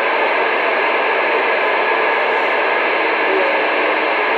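CB radio receiver putting out steady static hiss, with no voice on the channel.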